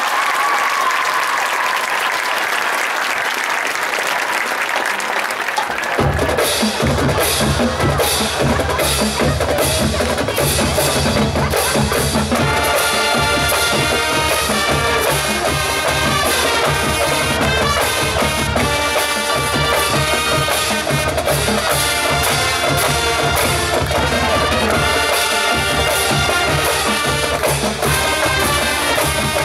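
Crowd applause dying away, then a marching band starts up about six seconds in: the drumline's snare and bass drums lead off, and the brass joins a few seconds later and plays on over a steady drum beat.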